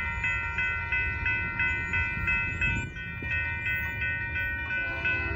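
Railroad grade-crossing bell ringing rapidly and evenly, about three strikes a second, warning of an approaching train, over a low rumble.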